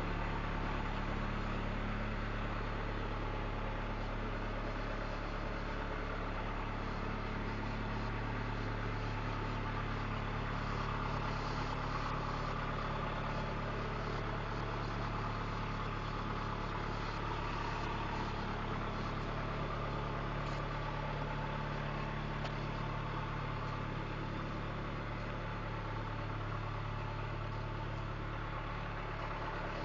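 Steady low hum of an engine idling, even and unchanging throughout.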